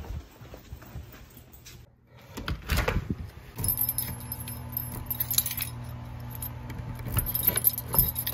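A bunch of keys jangling, with clicks as a key is worked in a front-door deadbolt, over a steady low hum. Before that, faint soft footsteps going down carpeted stairs.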